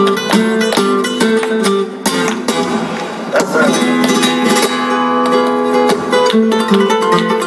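Flamenco guitar playing a soleá apolá, strummed and picked, with sharp hand claps (palmas) keeping the compás.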